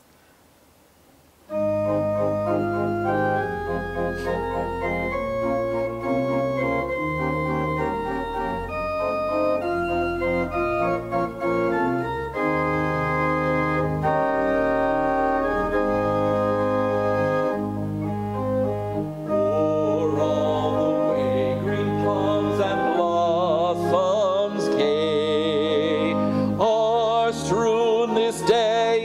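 Organ starts about a second and a half in, playing slow sustained chords over a held bass line. A wavering vibrato melody joins in over the last several seconds.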